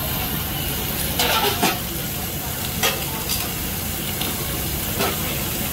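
Food sizzling on a teppanyaki griddle, with a handful of sharp clinks and scrapes over the steady sizzle.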